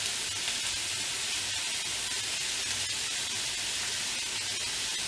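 Minced meat sizzling steadily in a hot frying pan.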